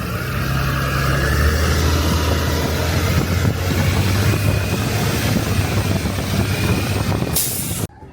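A vehicle engine running steadily with a low drone, under heavy noise on the microphone; a short loud rush of noise comes near the end.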